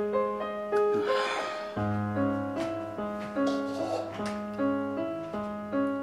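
Background music: a keyboard melody of struck notes, one about every 0.7 seconds.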